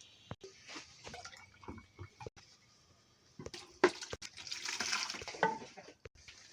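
Water splashing for about two seconds, starting with a couple of sharp knocks, after a few seconds of scattered light clicks and taps.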